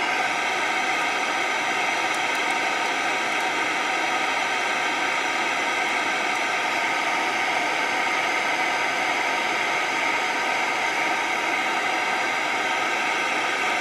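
Steady static hiss from the Sanyo Campanetta 7-band radio's speaker on the FM band, with no station coming in, a sign that the FM band is still not working.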